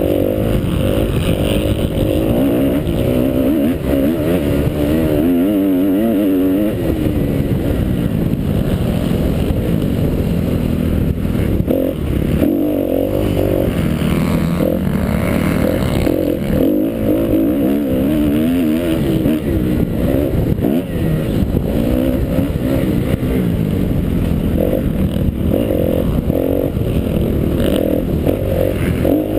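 2012 Kawasaki KX250F four-stroke single-cylinder motocross bike engine revving hard, its pitch rising and falling over and over as the rider works the throttle through the ruts and corners, heard on board.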